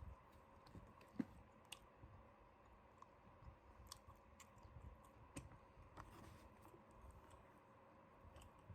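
Faint, scattered light clicks and taps over quiet room tone, with one sharper click about a second in.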